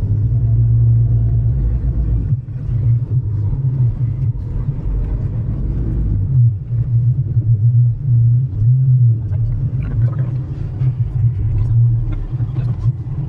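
Car engine running at low revs, heard from inside the cabin as the car creeps along, a steady low rumble whose pitch rises and dips slightly.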